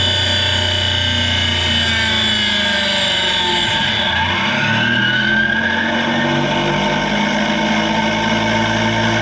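Unlubricated 3D-printed ASA helical gear train whining at high speed, a dense mix of steady tones. About four seconds in the tones glide in pitch and the highest whine drops away, leaving a lower hum as the gears run down.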